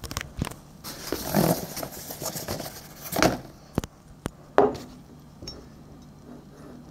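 A glass mercury vapor flood bulb being lifted out of its cardboard box: cardboard rustling and scraping, a few clicks, and a sharper knock with a brief ring about four and a half seconds in.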